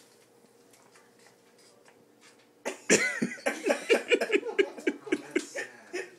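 Near silence at first, then about three seconds in a person breaks into laughter, short bursts coming several times a second.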